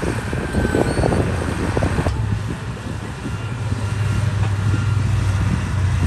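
Diesel engine of heavy earthmoving machinery running steadily, with rough clattering over the first two seconds. About two seconds in, the sound changes abruptly to a smoother, steady engine drone.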